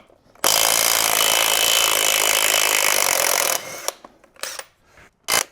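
Power tool on a 22 mm socket, most likely an impact wrench, running for about three seconds to break loose and spin off a wheel lug nut on a Kubota B2601 compact tractor. It then gives several short bursts near the end.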